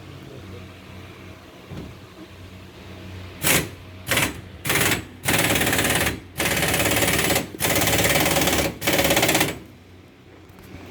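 Power tool in a vehicle repair workshop switched on in bursts: three short blips, then four runs of about a second each with brief gaps between them, over a low steady hum.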